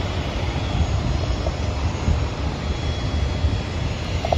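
Distant aircraft engines running across the airfield: a steady low rumble with a faint, thin high whine.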